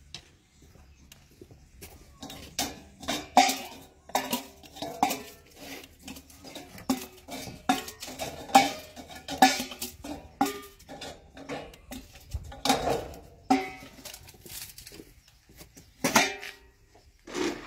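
Stainless steel dog bowls clanking and clattering as they are handled and knocked together, a long run of irregular sharp metal knocks, each with a short ring.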